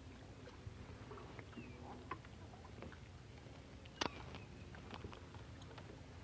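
Faint, quiet ambience of an angler working a rod and baitcasting reel from a boat: scattered light clicks and taps of the tackle, with one sharp click about four seconds in.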